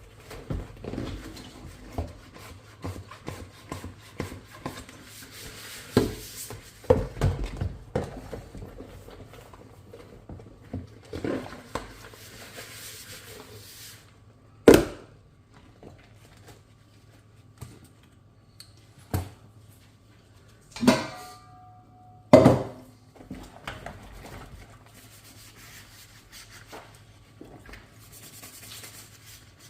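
Dishes being washed by hand: scattered clinks and knocks of crockery and cutlery, with soft rubbing and swishing between them and a few sharper knocks.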